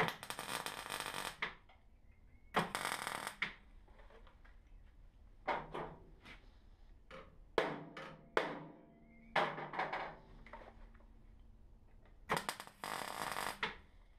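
MIG welder laying three short weld runs on a steel body panel, each about a second of crackling; between the second and third, a series of about eight sharp hammer blows on the steel panel, which ring briefly, to keep the welded joint flush.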